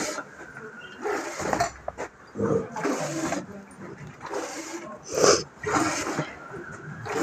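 Hand milking of a buffalo: milk squirting from the teats into a steel pail in short spurts, about one a second.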